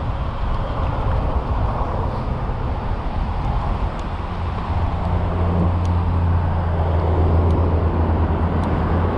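Rushing wind and road noise on a riding electric tandem bicycle. About four and a half seconds in, a steady low hum comes in and holds.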